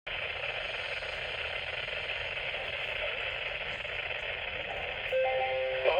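Weather radio receiver giving out a steady harsh buzzing hiss: the garbled, faulty start of a Required Weekly Test alert broadcast. A few steady tones come in about five seconds in.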